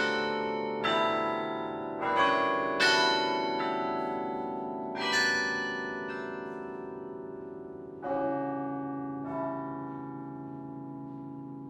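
Carillon's bronze bells played from the baton keyboard: six struck chords, spaced further apart as they go, the last two about eight and nine seconds in. Each is left to ring on and slowly die away.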